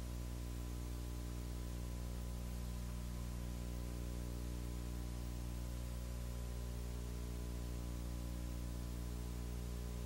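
Steady low electrical hum with an even hiss over it, unchanging throughout: the background noise of an old videotape recording with no speech or performance sound.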